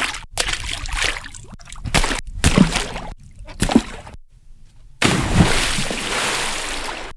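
A run of short cinematic sound-effect samples played back to back, each cut off abruptly with brief silences between them. They are mostly noisy, splashing and sloshing water-like sounds.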